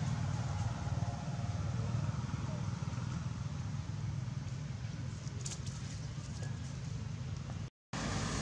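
A steady low rumble of background noise, cutting out briefly near the end.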